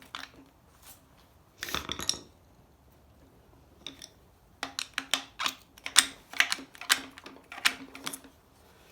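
Metal hand tool clicking and clinking against a neutral safety switch on an AW4 transmission case while the dirt-gunked switch is worked loose. A short run of sharp clicks comes about a second and a half in, and a longer, faster run from about four and a half seconds to about eight.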